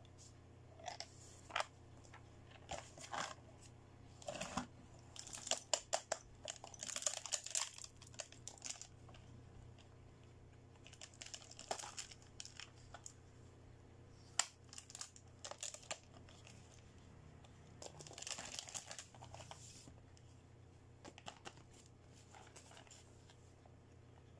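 Clear plastic toy packaging bags crinkling as they are handled, in several bursts, with scattered light clicks of hard plastic toy pieces.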